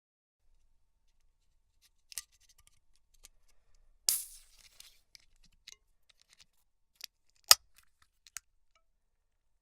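Aluminium soda can being opened: a click on the ring-pull, then the tab snaps open with a short hiss of escaping carbonation that fades into faint fizzing crackles. A few sharp metallic clicks follow near the end, one of them the loudest sound of all.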